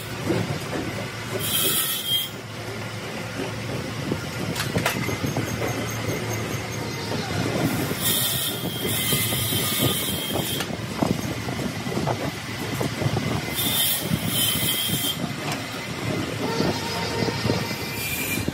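Crankshaft grinding machine running with a steady mechanical noise. A high hiss from the grinding wheel comes in three spells: about one and a half seconds in, from about eight to ten and a half seconds, and around fourteen seconds.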